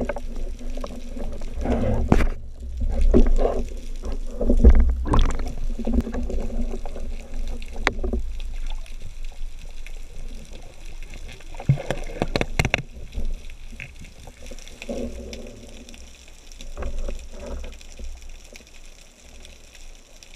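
Underwater sounds of spearfishing: a low rumble of water with a series of sharp knocks and thuds as the speargun is fired and the speared fish struggles on the shaft and line, growing quieter near the end.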